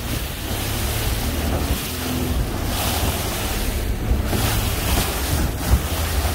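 Small fishing boat's motor running under heavy wind buffeting on the microphone and the rush of waves, the wind and water noise swelling and fading in surges as the boat heads out through the surf.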